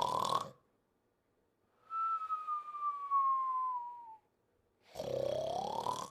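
Cartoon snore-and-whistle sleeping sound. A rasping snore rising in pitch ends just after the start. About two seconds in, a clear whistle glides slowly downward for about two seconds, and near the end another rising snore begins.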